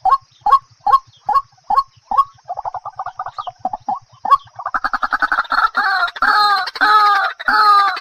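White-breasted waterhen calling. A run of short calls comes about two and a half a second, then a quick stuttering chatter, then from about five seconds in louder, fuller croaking calls about twice a second.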